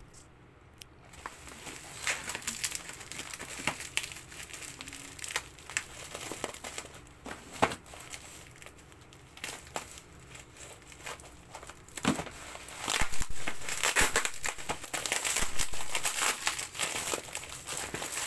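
Bubble wrap and plastic packaging crinkling and crackling as a parcel is unwrapped by hand, louder over the last several seconds.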